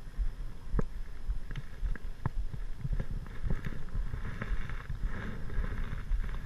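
Close handling noise as a small bass is unhooked by hand: scattered light clicks and knocks from fingers, hook and plastic popper fly, over a low wind rumble on the microphone.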